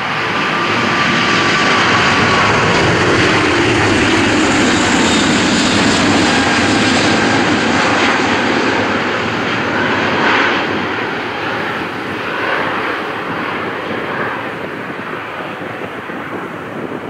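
Airbus A380's four jet engines at takeoff power: a loud, steady rush with a faint whining tone near the start. It is loudest in the first half and fades as the aircraft climbs away.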